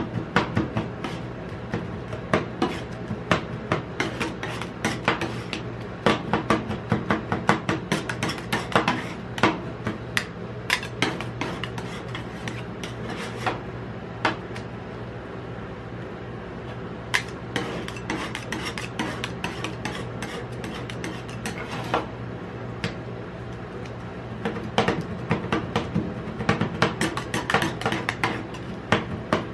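Two metal spatulas chopping and scraping ice cream mix on the steel cold plate of a rolled ice cream pan: quick clinks and taps of the blades on the metal with scraping between them. The tapping thins out for a stretch midway and picks up again near the end, over a steady low hum.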